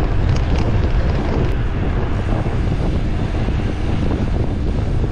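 Wind buffeting the microphone on a moving bicycle: a loud, steady low rumble.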